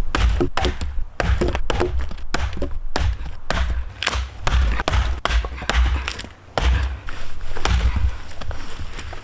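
Firewood being split with an axe: a run of irregular thuds and knocks as the blade strikes and the wood cracks apart.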